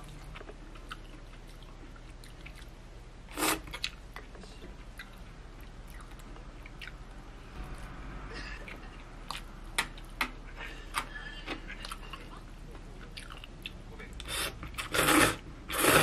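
Close-miked eating sounds: chewing with small clicks and smacks, a loud noisy slurp about three and a half seconds in, and a run of louder slurps of instant stir-fried noodles near the end.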